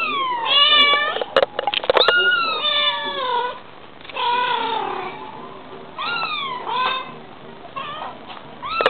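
Bengal mother cat and kitten meowing back and forth: a series of about eight meows, some short and some long and drawn out, with a few sharp clicks between one and two seconds in.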